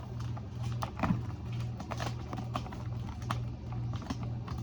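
Scattered light clicks and taps from hands handling a plastic doll, over a low hum that swells and fades about twice a second.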